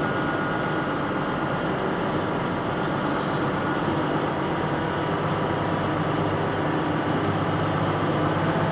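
Diesel engine of a 32-tonne concrete mixer truck running steadily as the truck drives along.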